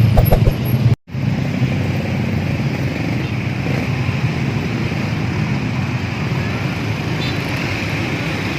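Steady roadside traffic noise of motor vehicles running past in slow traffic, with a low engine rumble at the very start and a brief total drop-out about a second in.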